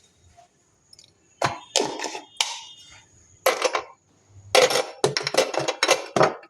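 Clinks and knocks of kitchen utensils against steel dishes, coming irregularly and growing denser in the last two seconds.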